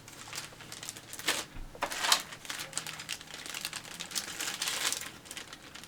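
Plastic packaging of model-kit parts crinkling and rustling as it is handled, in irregular bursts.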